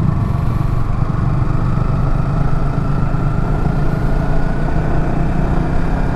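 Yamaha R15M's 155 cc single-cylinder engine running under way, its pitch rising slowly and steadily as the bike gathers speed.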